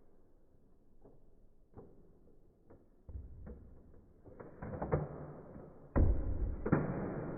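Nerf Elite 2.0 Commander RD-6 dart blaster being worked: a few light clicks, then louder shots and knocks, the strongest about six seconds in with another close after.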